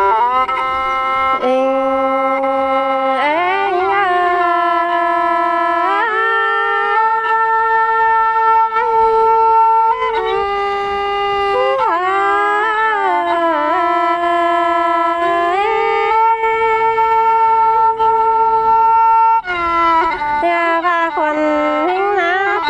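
Two-string bowed fiddle playing a slow solo melody of long held notes, joined by sliding ornaments between pitches.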